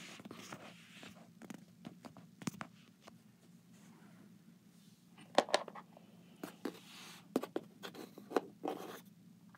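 Handling noises of small plastic toys on cardboard: light scattered taps and scrapes, with a few sharper knocks about halfway through and again near the end.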